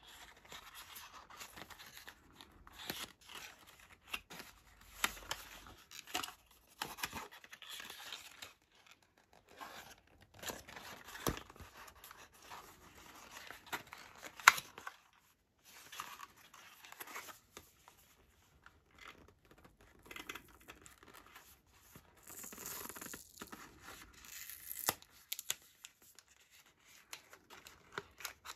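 Thin cardboard of an earbuds box and its inner tray being handled and unfolded: irregular rustling, scraping and light tapping of card and paper, with one sharp click about halfway through.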